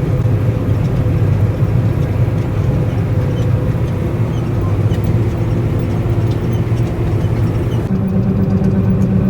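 Combine harvester running, a steady low engine and machinery drone heard from inside the cab. About eight seconds in, the sound changes, with a stronger low hum and less hiss.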